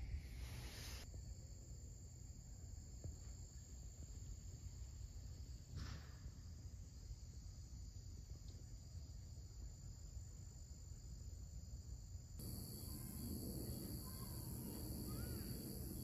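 Chorus of night insects trilling steadily in high, even tones over a low background rumble. About twelve seconds in, the chorus shifts to a higher-pitched one. A brief soft noise comes near the start and another about six seconds in.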